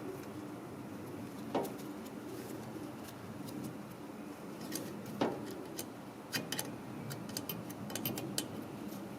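Metal clicks and clinks of a Briggs & Stratton valve spring compressor and valve parts being worked while a valve spring is compressed and removed: two sharper taps with a short ring, about a second and a half and five seconds in, then a run of small quick clicks near the end.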